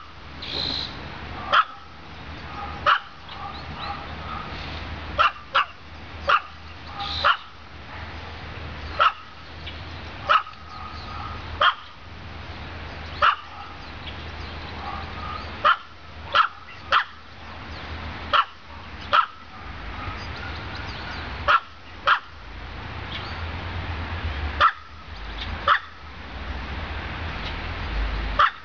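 Chihuahua barking single short barks, about one every second or so, now and then two in quick succession.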